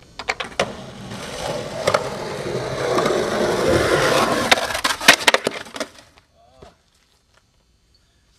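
Skateboard rolling on rough concrete: a few clacks as the board is set down and pushed, then a rolling rumble that grows louder. About five seconds in comes a quick run of sharp clacks and impacts of board and rider hitting the concrete in a fall, and the rolling stops abruptly.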